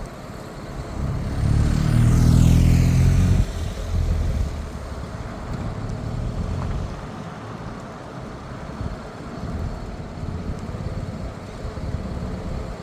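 A heavy road vehicle drives past close by. Its engine swells loudly from about a second in, with a falling whine as it goes by, and drops off sharply about three and a half seconds in. A steady low traffic rumble follows.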